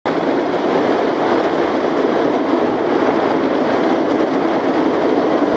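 Plastic ice-fishing sled towed across bare lake ice, its runners making a steady, loud scraping rattle.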